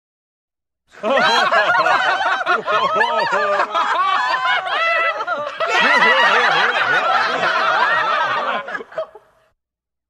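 Comic laughter sound effect: a burst of rising-and-falling laughter that starts about a second in, runs for about eight seconds, and fades out near the end.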